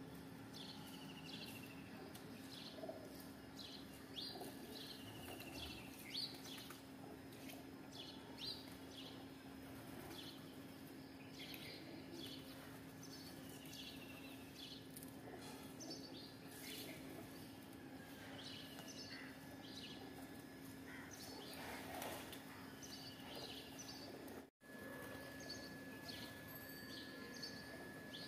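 Birds chirping over and over in short, falling calls, over a steady low hum and outdoor background noise. The sound drops out briefly near the end.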